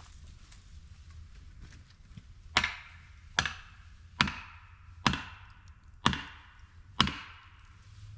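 Six heavy blows struck into a tree being felled, about one a second, each a sharp crack with a short ringing tail.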